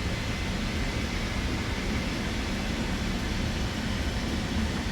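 Steady whirring of running Bambu Lab 3D printers and their cooling fans, an even machine noise with a faint hum.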